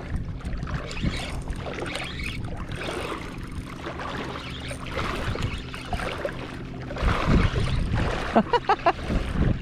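Water splashing and sloshing while a hooked redfish is fought on light tackle, with a louder surge of splashing about seven seconds in and a quick run of short sharp sounds near the end.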